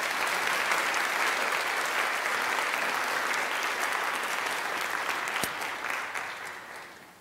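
Audience applauding at the end of a lecture, steady for several seconds and dying away near the end.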